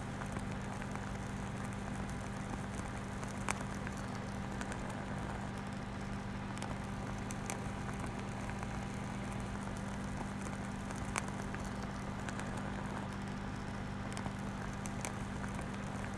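A steady low electronic-sounding hum with scattered faint crackles and clicks, the sharpest about three and a half seconds in and again about eleven seconds in.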